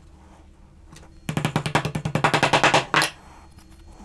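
Wooden round rod being pushed into a tightly drilled hole in a timber corner joint. It makes a rapid run of clicks, about fifteen a second, starting about a second in and lasting under two seconds.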